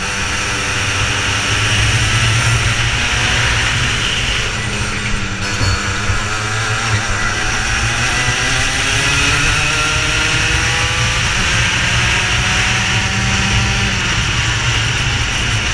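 Racing kart engines at full racing speed: the pitch climbs steadily for several seconds as the karts accelerate, then falls away about fourteen seconds in as they come off the throttle, with more than one engine heard at once.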